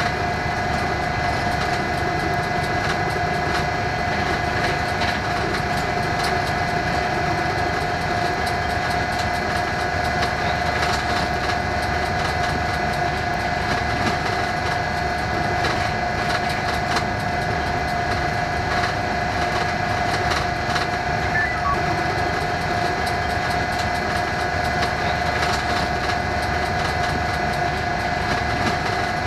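Diesel locomotive running along the track, heard from its front end: a steady engine and rail noise with a constant whine and occasional faint clicks from the wheels on the rails.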